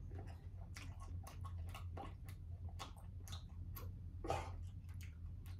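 Two people chewing hot wings: irregular mouth clicks and smacks over a steady low hum, with one louder breathy rush a little over four seconds in.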